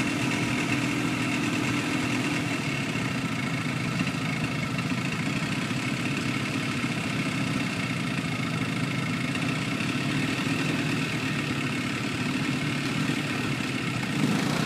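ATV engine running steadily, with no revving, as the quad crawls through shallow water and onto the bank.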